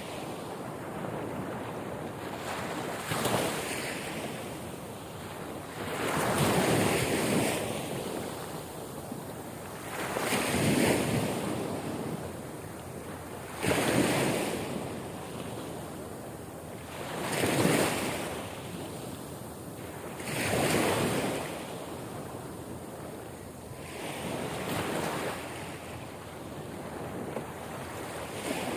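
Sea waves breaking on the shore, one swell after another about every three to four seconds over a steady wash of surf.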